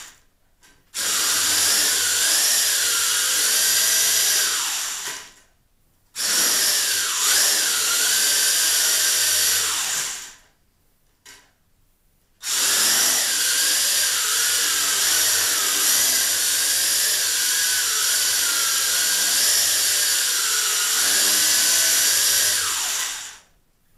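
WLtoys V333 quadcopter's motors and propellers whining at a wavering high pitch, cutting out suddenly to near silence a few times and spinning up again after pauses of up to about two seconds.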